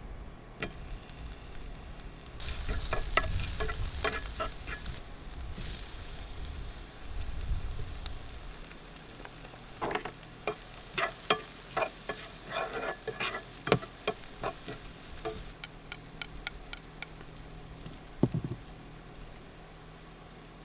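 Food sizzling in a frying pan, with a utensil clinking and scraping against the pan in quick knocks, and a single heavier knock near the end.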